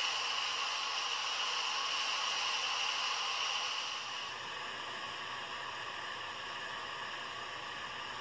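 Steam hissing steadily out of a Fagor Futuro stainless steel pressure cooker's operating valve, set to quick release to vent the pressure after cooking. The hiss eases slightly about four seconds in and keeps going.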